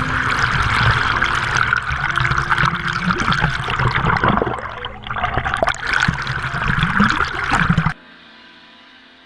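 Rushing, splashing water that cuts off suddenly about eight seconds in, leaving a quieter ringing musical chord that slowly fades.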